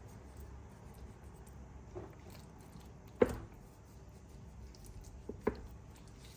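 A few light knocks and clicks of kitchen items being handled over quiet room tone. The clearest comes about three seconds in.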